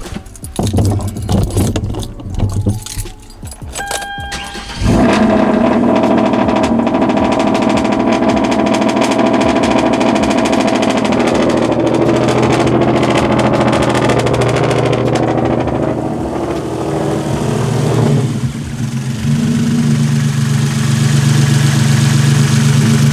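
Clicks and knocks of handling in the car, then about five seconds in the Hyundai Genesis Coupe's 3.8-litre V6 starts and runs steadily, its low note growing stronger near the end. This is its first start after fitting an oil catch can into the crankcase ventilation line, checking that it still starts and runs.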